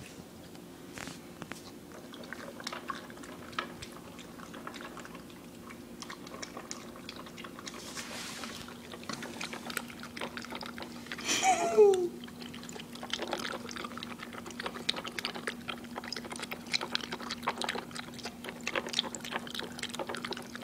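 Dog eating kibble soaked in water: wet chewing and slurping with many small crunches and clicks, over a faint steady hum. About halfway through a brief falling vocal sound is the loudest moment.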